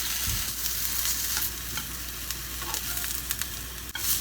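Sliced pumpkin and shiitake mushrooms sizzling steadily in vegetable oil in a frying pan, with a few light clicks.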